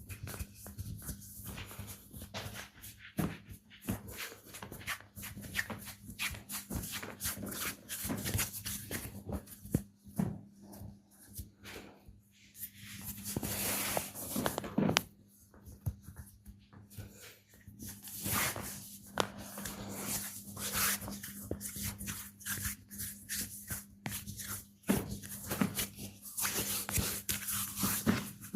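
Hands massaging a person's body: irregular rubbing and friction on skin with pats and a few sharper slaps, over a steady low hum.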